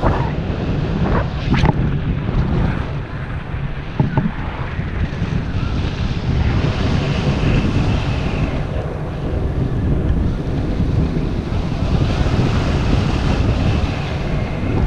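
Airflow from paraglider flight buffeting the camera microphone: a steady, loud rush, heaviest in the low end, with a couple of short knocks about one and a half and four seconds in.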